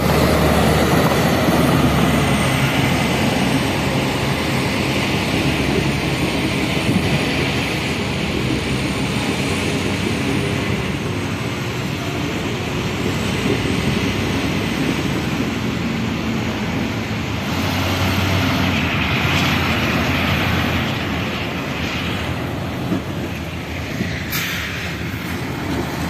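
Diesel engines of heavy earthmoving machinery, a crawler bulldozer among them, running steadily with a continuous mechanical rumble.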